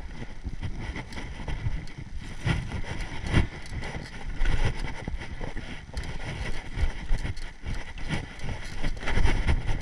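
Mountain bike riding over a rough dirt trail: tyres on the ground and the bike rattling over bumps in irregular knocks, with wind buffeting the action camera's microphone.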